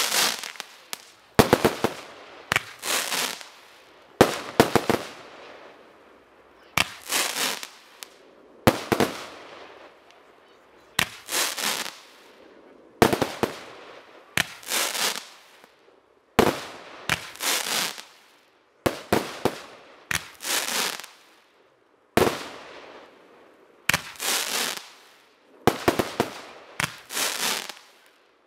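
Cube Fireworks Explosive Box 2 firework cake firing shot after shot, about one every one to two seconds. Each shot is a sharp launch report followed by a burst that trails off in crackles.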